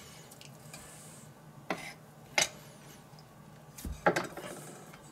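A few short, sharp knocks and clicks of a kitchen knife and hands on a wooden cutting board as pork fillet is trimmed and the pieces are laid down, spread over the few seconds with a faint steady hum underneath.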